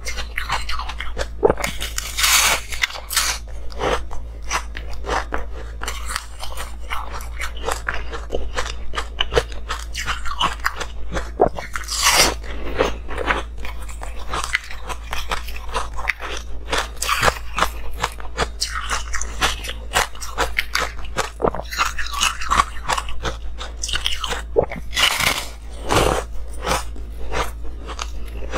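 Close-miked biting and chewing of frosty, rainbow-coloured ice: a dense run of sharp crunches with several louder bites along the way. A steady low hum sits underneath.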